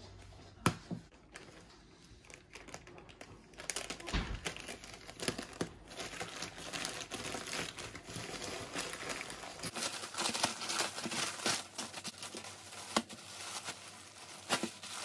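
Plastic mailing satchel being torn open by hand, then the clear plastic bag around a jersey crinkling as it is handled. Quiet for the first few seconds; the crinkling starts about three and a half seconds in, with sharper crackles from about ten seconds in.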